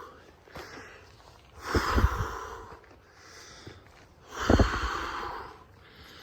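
Heavy breathing of a hiker climbing a steep trail: two hard exhales about 2 s and 4.5 s in, each blowing onto the microphone with a low buffeting thump.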